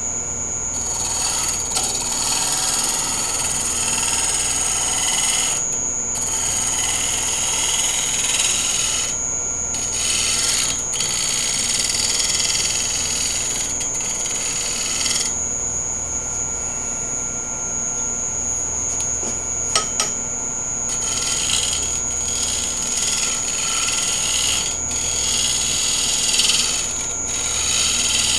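Wood lathe running with a steady high-pitched whine and low hum, while a bowl gouge shear-cuts the spinning wooden bowl with a hiss of shavings. The cutting hiss stops briefly a few times as the gouge lifts off, the longest gap being several seconds in the middle. Two sharp clicks come about two-thirds of the way through.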